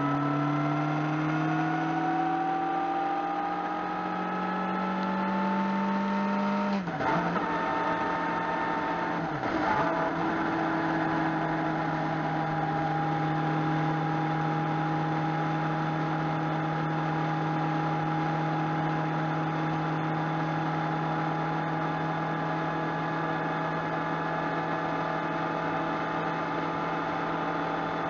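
Motorcycle engine accelerating, its pitch climbing steadily for about seven seconds, then dipping briefly twice, around seven and nine and a half seconds in, before holding a steady cruising note. Wind and road noise run underneath.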